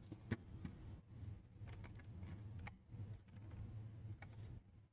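Scattered faint clicks from a computer mouse and keyboard as the CAD work goes on, over a low steady hum.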